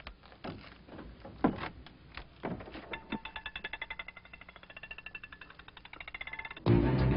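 A few separate knocks, then a fast, even ticking at about ten ticks a second with high electronic tones over it for a few seconds. Near the end, a loud burst of guitar-and-bass film score comes in.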